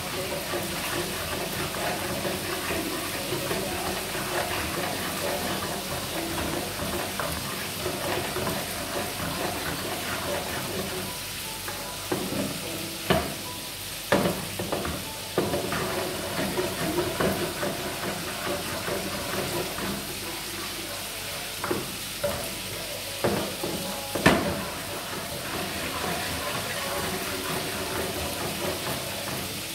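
Food frying in plenty of oil in a frying pan, a steady sizzle, stirred with a wooden spatula that scrapes and knocks against the pan. A few sharper knocks come near the middle and one more, the loudest, later on.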